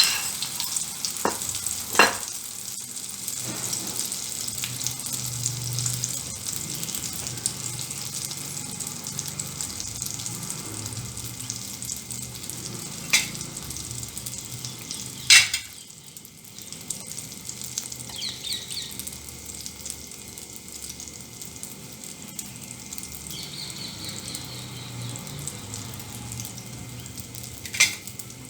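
Egg, potato and onion mixture sizzling as it fries in hot oil in a pan, a steady frying hiss broken by a few sharp clicks. The sizzle turns quieter about halfway through.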